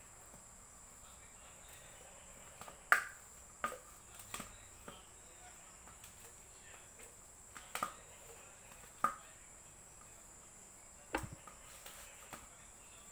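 A hand mashing boiled potatoes in a steel plate, giving sharp, irregular clicks and knocks against the metal, the loudest about three seconds and nine seconds in. Under them runs a steady high-pitched insect-like hum.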